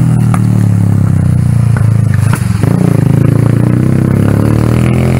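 Motorcycle engine running steadily while riding along, with a brief dip in level about halfway through before it picks up again.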